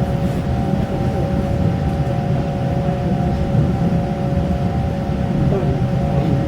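Steady running noise heard from inside a Taiwan Railway electric commuter train in motion: a continuous low rumble with a steady, even whine over it.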